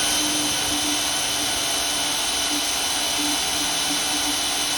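Cordless Ryobi drill running steadily at full speed, a 1/8-inch Milwaukee cobalt bit boring into hard steel.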